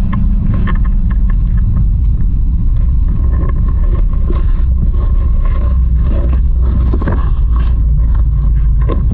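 Vehicle engine and road rumble heard from inside a crowded passenger compartment: a loud, steady low drone with scattered small rattles and knocks from the body.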